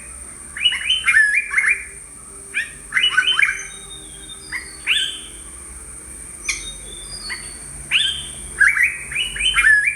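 Yellow-browed bulbul calling: several phrases of quick, chattering notes, each sweeping sharply in pitch, with short pauses between phrases.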